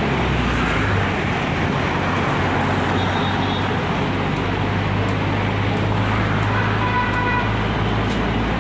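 Steady city road-traffic noise with a continuous low engine hum, and a faint high tone about seven seconds in.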